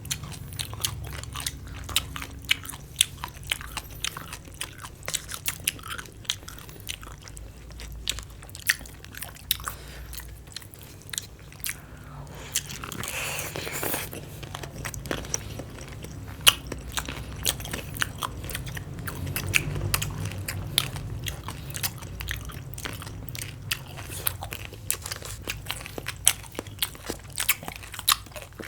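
Close-miked crunchy chewing and biting of raw green papaya salad and cucumber, many sharp crisp crunches in quick irregular succession. About halfway through there is one longer noisy sound lasting a second or so.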